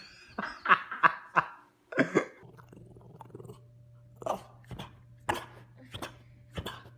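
A dog making a series of short, sharp sounds, a few quick ones at first and then more spaced out over a steady low hum.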